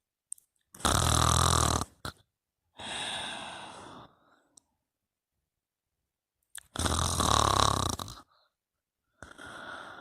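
Snoring in sleep: two loud, deep snoring inhales about six seconds apart, each followed by a softer, breathy exhale.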